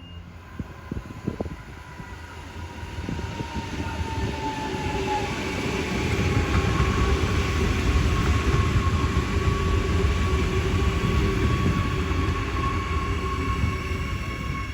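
Adelaide Metro 4000-class electric multiple unit running through the station, its rumble growing louder over the first several seconds and then staying loud, with a steady whine over the wheel noise.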